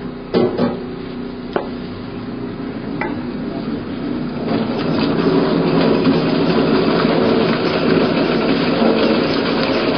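Mori Luigi Dinamica 100 grape destemmer-crusher and its selection line running with a steady hum, with a few sharp knocks in the first three seconds. About halfway through the sound grows louder and denser as grapes pass through the machine.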